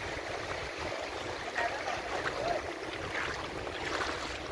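Shallow seawater splashing and trickling as a perforated metal sand scoop is dipped and lifted, the water draining out through its holes.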